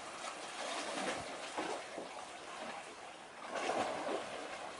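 Wind buffeting the microphone in irregular gusts, loudest about four seconds in.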